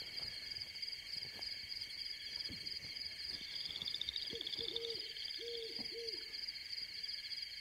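Night-forest ambience: steady cricket chirring, with a run of short owl hoots in two groups about four to six seconds in.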